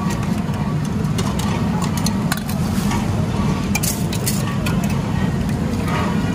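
Busy street background: a steady low rumble of traffic, with scattered short clicks and clinks of utensils at the food stall.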